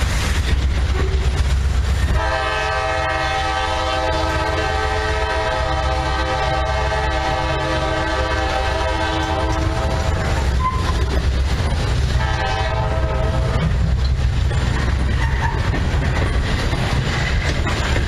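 Freight train's boxcars rumbling and clacking along the rails, while the horn of the distant Norfolk Southern C40-9W lead locomotive sounds a long chord from about two seconds in and a short one about twelve seconds in.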